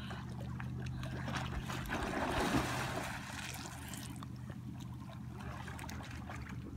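Water splashing as a swimmer dives under the lake surface, loudest about two to three seconds in, over a steady low hum.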